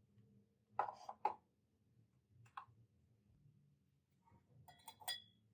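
Light knocks and clicks of a plastic digital kitchen scale being handled and set down on a benchtop; the two loudest knocks come about a second in, with a quicker cluster of clicks near the end.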